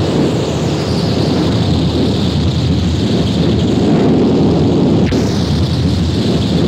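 Harsh noise: a loud, unbroken wall of distorted static and rumble, heaviest in the low and middle range, changing texture abruptly about five seconds in.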